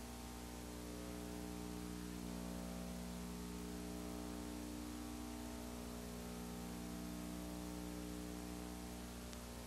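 Steady electrical mains hum, a buzz of several fixed tones, over constant hiss, with nothing else sounding.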